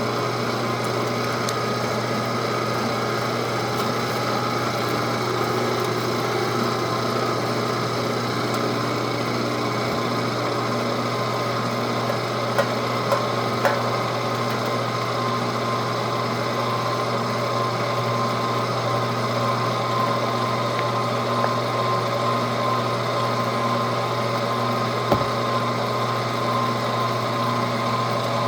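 Weston #32 commercial electric meat grinder with a 1.5 horsepower motor running steadily, a constant motor hum, with a few short sharp clicks about halfway through and again near the end.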